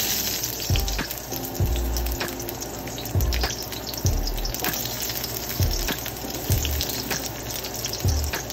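Hot oil in a wok sizzling steadily as sliced onions land in it beside garlic cloves, the hiss starting right as they drop in. Background music with a steady beat plays underneath.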